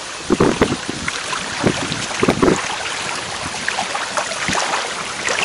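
Wind noise on the microphone, with a few short thumps in the first half.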